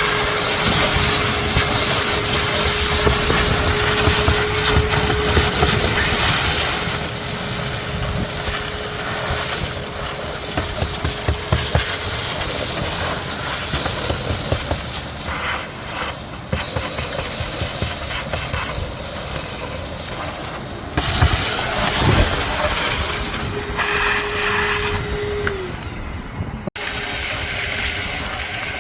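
Vacuum cleaner running steadily, sucking up shattered tempered sunroof glass, with the crackle and rattle of the glass fragments going up the hose. Its hum dips and glides down near the end, and the sound cuts off abruptly shortly after.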